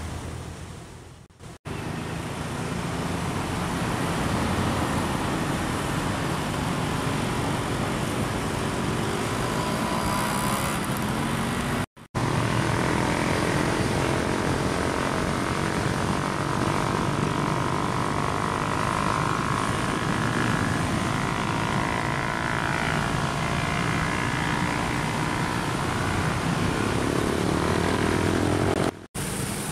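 Steady road traffic, with the engines of passing vehicles rising and falling in pitch over a continuous rumble. It drops out briefly three times.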